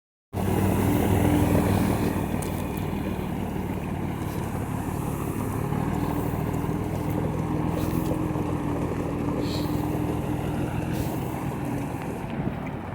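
Scania 112 truck's 11-litre inline-six diesel engine running steadily. It is a little louder for about the first two seconds, then settles to an even idle.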